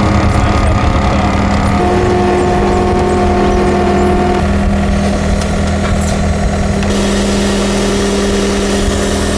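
Diesel engine of a John Deere 325G compact track loader running steadily while it carries a load on its pallet forks. The engine note jumps to a slightly different pitch a few times.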